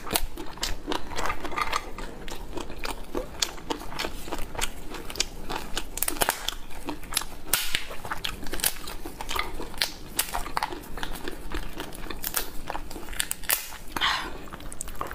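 Close-miked eating sounds of a cooked lobster: the shell cracking and crackling as gloved hands break it open and pull out the meat, mixed with biting and chewing and the crinkle of plastic gloves. The clicks are dense and irregular throughout.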